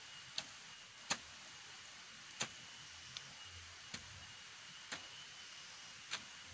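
Steady hiss of rain with sharp single taps or knocks about once a second at uneven intervals, and a faint thin high tone that comes and goes.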